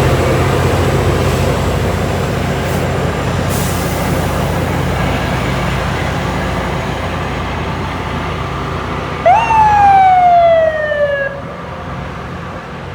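Low heavy engine rumble from the rail grinder train, slowly fading as it moves off. About nine seconds in, a single siren whoop: a quick rise in pitch, then a slow fall over about two seconds, louder than the rumble.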